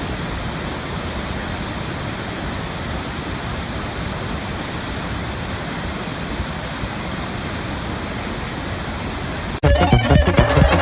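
A steady, even rushing noise. Near the end it gives way abruptly to loud music with a beat.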